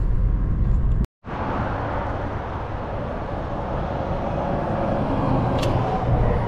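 Car cabin road and engine noise for about a second, then, after a cut, a steady outdoor noise with one sharp click about five and a half seconds in as a restaurant's glass door is pulled open.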